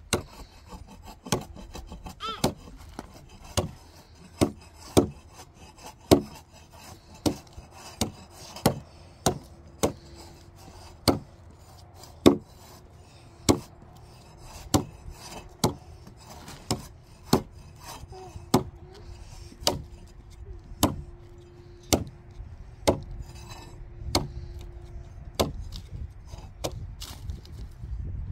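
A hand tool striking wood, blow after blow, about once a second.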